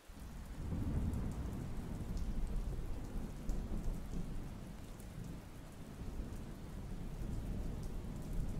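Rain falling steadily with a low rumble of thunder underneath, fading in from silence at the start.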